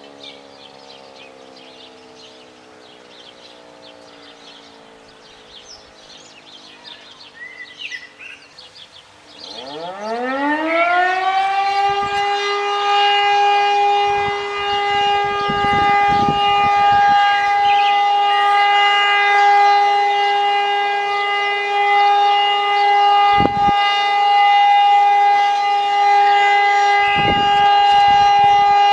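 Birds chirping over a faint, distant siren winding down. About ten seconds in, an E57 electromechanical civil-defence siren spins up with a quickly rising wail and settles into a loud, steady, unbroken tone: the continuous tone that signals the all-clear (Entwarnung) in a German siren test.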